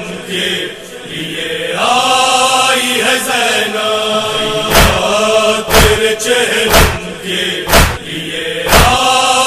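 Men's voices chanting a nauha lament in long held notes. From about halfway, matam joins in: hands striking chests in unison, a deep thump about once a second.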